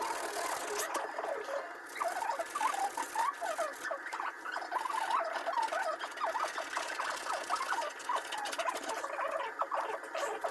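Abrasive pad being scrubbed back and forth over the van's painted metal roof to key it up for bonding, a continuous run of quick, high squeaks from the rubbing.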